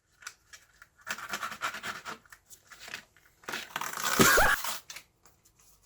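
Strong packing tape being picked at and pulled, with scratching and tearing noises in two stretches; the second, about three and a half seconds in, is the louder.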